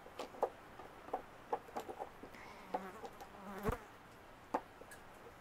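Small hard cast-resin stones lightly clicking and tapping as they are handled and set down on paper over a metal tray: about a dozen separate clicks at uneven intervals.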